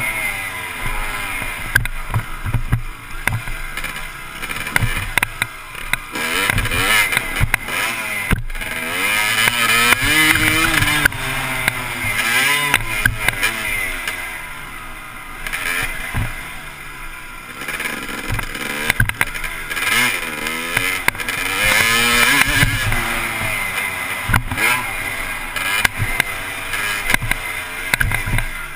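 Dirt bike engine revving hard and shifting through the gears, its pitch climbing and dropping back again and again, with wind rush and sharp knocks from the ride over the track, heard from a helmet-mounted camera.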